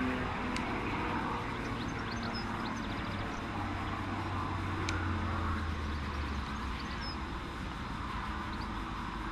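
Extra 330 aerobatic propeller plane's engine droning in the distance, with a low drone that grows stronger in the middle of the stretch and fades again, over a steady outdoor hiss.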